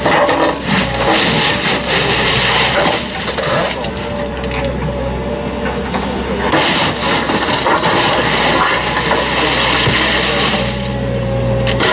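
Terex road-rail excavator running, its diesel engine giving a steady low hum as the hydraulic arm works a sleeper-handling attachment, with a faint whine now and then.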